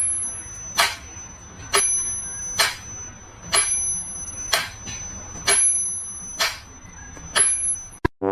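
Sharp ticks repeating evenly, about one a second, nine in all, over a faint steady high tone.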